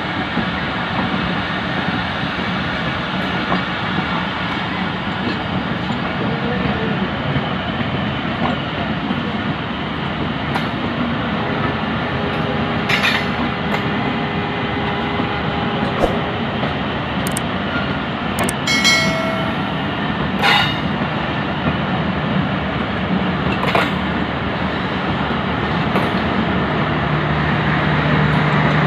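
Two trains passing close on adjacent tracks: a steady loud rush of wheels, rails and wind, broken by sharp clicks over the rail joints and a brief metallic squeal past the middle. Near the end a low steady hum joins in as the passing train's power van goes by.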